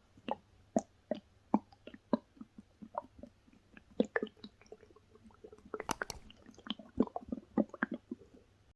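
A person's stomach gurgling: irregular squishy pops and short bubbling gurgles, with a denser run about six seconds in.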